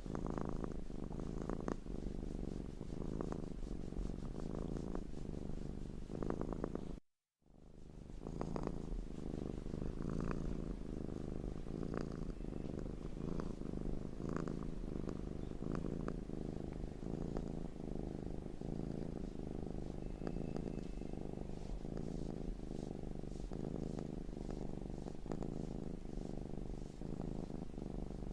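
Domestic cat purring steadily and close up, a low rumble that swells and fades with each breath. About seven seconds in it cuts out completely for a split second, where the loop restarts.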